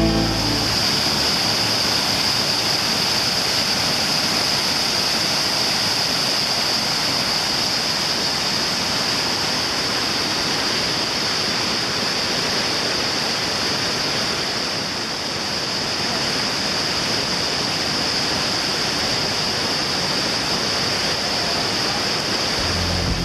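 Steady rushing of water with a strong high hiss, easing slightly about fifteen seconds in.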